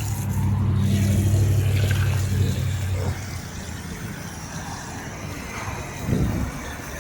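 Motor of an electric water spray machine running with a steady low hum, then cutting out about three seconds in. A brief low knock follows a little after six seconds.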